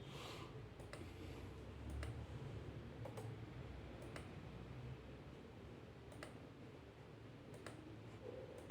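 Faint sharp clicks, roughly one a second and a little uneven, over a low room rumble.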